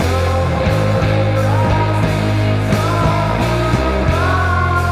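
Heavy psychedelic rock: sustained low bass notes under a steady drum beat, with a held melody line that slides up in pitch a few times.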